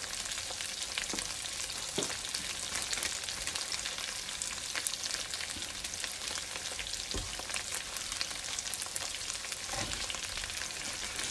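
Carrots, potatoes and onion sautéing in oil with tomato paste in a nonstick frying pan: a steady sizzle with scattered small crackles and a few sharper pops.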